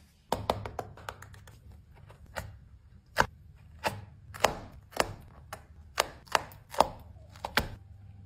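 Hands handling laminated paper cutouts on a paper doll, pressing and tapping the pieces down: a series of sharp clicks and taps, about two a second.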